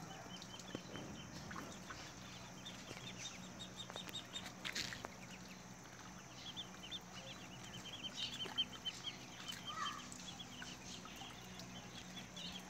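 Muscovy ducklings peeping: a soft, continual string of short, high cheeps.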